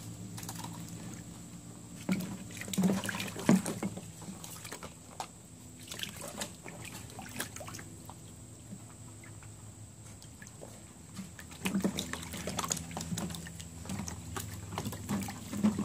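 A golden retriever puppy splashing and sloshing through shallow water in a plastic kiddie pool, in irregular bursts that are louder twice, over a steady low hum.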